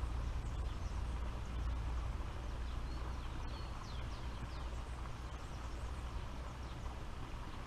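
Open-air ambience: a steady low rumble of wind on the microphone, with a few short, high bird chirps from about three to six seconds in.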